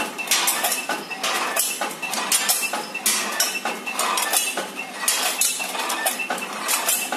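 Multihead weigher counting candy one piece at a time: a dense clatter of candies rattling across its vibrating metal feed pans and dropping through the weigh hoppers, many quick clicks and clinks.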